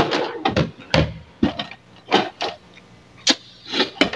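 A series of short clicks and knocks as parts of a flat-screen TV are handled and fitted back into place during reassembly.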